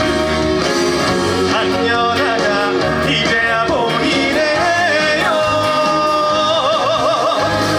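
A trot song sung live by a male singer over a band accompaniment. The melody ends in a long held note with vibrato during the last couple of seconds.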